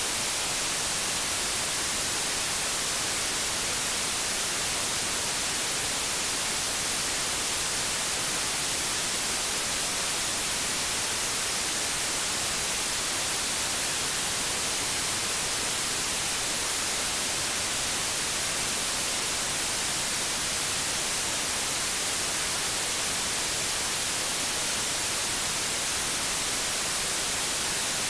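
Steady white noise: an even, unchanging hiss, strongest in the high pitches.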